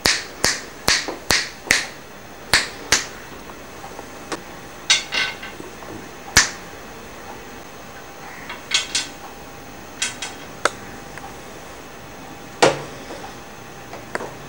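Sharp plastic taps and knocks as a toddler bangs a plastic toy stick about: a quick run of about six taps in the first two seconds, then scattered single taps and short double knocks, some with a brief ringing after them.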